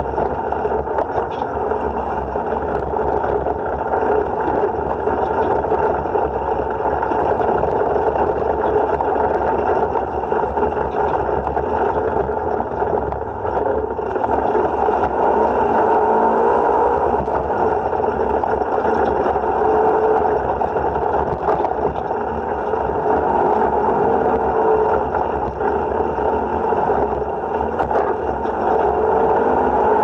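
Side-by-side UTV's engine and drivetrain running under way on a dirt trail, heard from the cab. The engine note falls and rises with the throttle as the machine slows and speeds back up.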